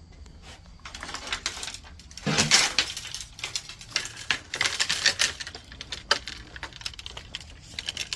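Irregular clinking and rattling of gear being handled, with a louder clatter and thud about two and a half seconds in.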